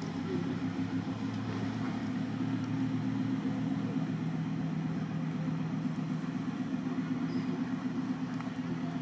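A steady low engine hum, like a motor vehicle running nearby.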